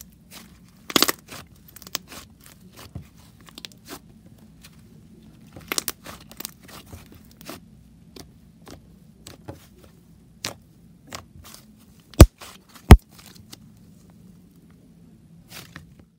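Hands squishing, poking and stretching thick yellow butter slime, giving sticky clicks and crackles. There is a burst of crackling about a second in, and two loud, sharp pops about three-quarters of the way through, the loudest sounds here.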